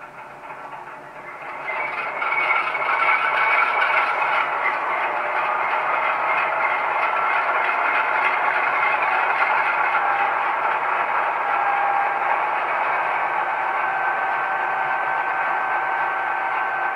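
LokSound sound decoder in an HO scale ScaleTrains GE C39-8 model locomotive playing its diesel engine sound at idle through the model's small speaker, thin and midrange-heavy with little low end. It fades in over the first two seconds, then holds steady.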